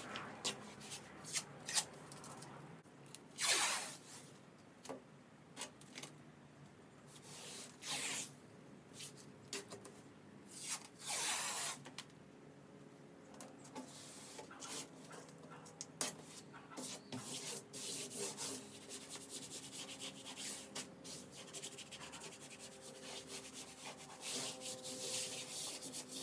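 Green FrogTape painter's tape being pulled off the roll in several long rasping strips and rubbed down by hand onto canvas and plywood, with scattered small clicks and taps in between.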